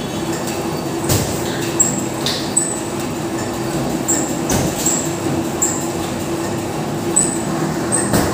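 Steady mechanical hum of gym room noise, with short high squeaks every second or so and a few sharp knocks.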